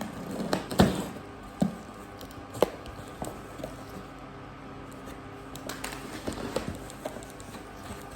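Hands handling a parcel's paperwork and packaging: several sharp taps and knocks in the first few seconds, then paper or plastic rustling.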